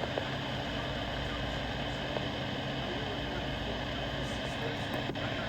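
Steady hiss with a faint low hum and no voice or alert tones: dead air after the alert broadcast cuts off mid-message. A faint click near the end.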